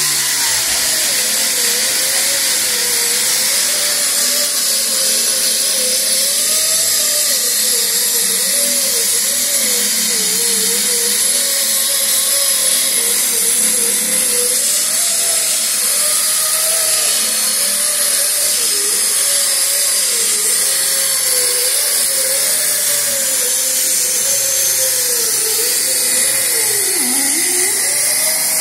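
Air-powered sander with a 36-grit disc grinding old paint and body filler off a car's steel door panel down to bare metal, with a steady high hiss. Its whine wavers up and down as the tool is worked back and forth and dips sharply near the end.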